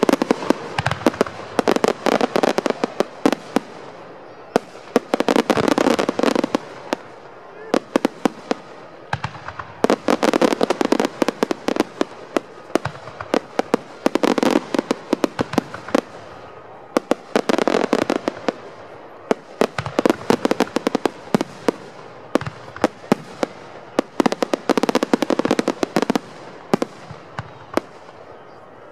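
Aerial fireworks display: shells bursting in dense clusters of sharp crackling pops, one wave every three to four seconds with brief lulls between.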